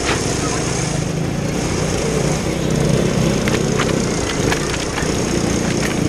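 Small pull-start gas engine in a Power Wheels ride-on car running under throttle as it drives over rough grass. Sharp clattering knocks from the plastic body and frame come several times around the middle, as it bounces over bumps.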